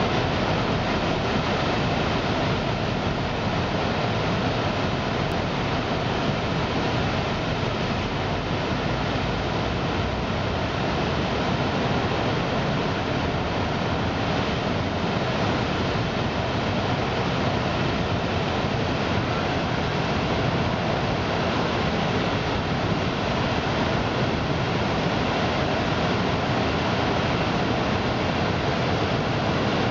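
Large river rapids rushing and churning over rock ledges, where the fast flow breaks into a hydraulic jump, a big standing wave of whitewater. The sound is a steady, unbroken rush of water.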